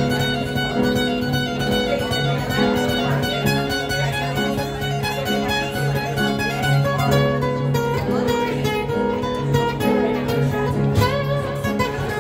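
Acoustic guitar played with a pick, an instrumental passage of quick picked notes over ringing low notes, with no singing.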